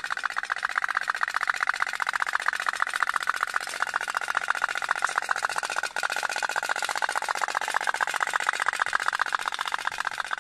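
Otok-otok (pop-pop) toy steam boat running, its small boiler putting out a fast, steady, even train of pops.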